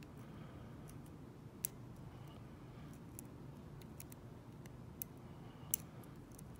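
Scattered faint metallic clicks of a lock pick working the pins in a dimple padlock's keyway: a sharp tick about a second and a half in and several more in the second half, the loudest near the end, over a low steady hum.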